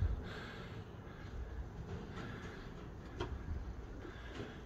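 Faint ticking of a church turret clock movement, a few soft ticks about a second apart, over a low rumble of wind.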